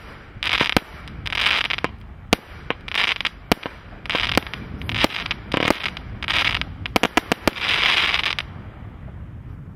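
Celtic Fireworks Hyperglow multi-shot firework firing: a rapid string of sharp bangs as the shots launch and break, mixed with short bursts of hissing crackle from the bursting stars. It dies away shortly before the end.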